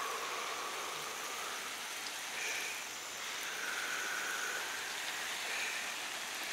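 Water spraying steadily onto a freshly laid bed of sugarcane mulch and young vegetable plants, a continuous even patter as the new no-dig bed is given its first soaking.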